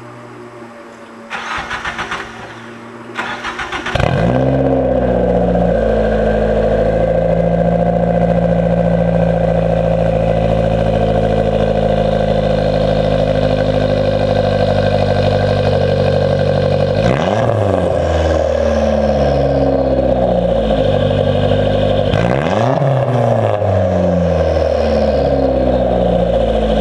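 Mazdaspeed Protege's turbocharged 2.0-litre four-cylinder cranking in two short tries on a cold start, catching about four seconds in and settling to a steady idle. Later it is revved twice briefly, the spool-ups after which the owner sees a puff of blue smoke, which he suspects comes from bad turbo seals.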